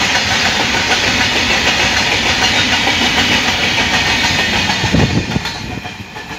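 Indian Railways freight train of covered cement wagons rolling past: a steady clatter and rumble of steel wheels on the rails. A couple of heavy thumps come about five seconds in as the brake van at the tail passes, then the noise drops away as the train moves off.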